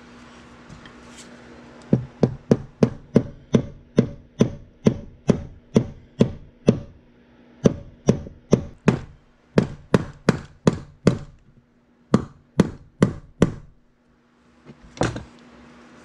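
Repeated sharp tapping knocks, about three a second, in several runs with short pauses between them, and one last knock near the end.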